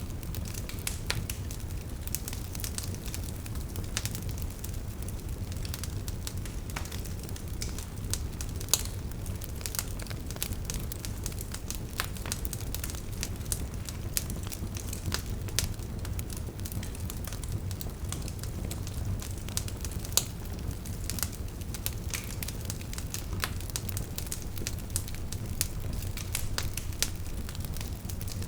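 Wood fire burning in a fireplace: a steady low rumble of flames with irregular crackles and pops from the burning logs, a few sharper pops standing out.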